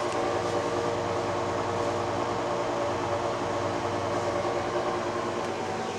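A machine running with a steady, even-pitched hum.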